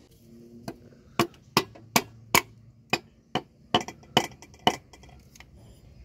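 Piston being tapped down through a ring compressor into a Golf Mk1 engine's cylinder bore: about ten sharp taps, two or three a second, starting about a second in.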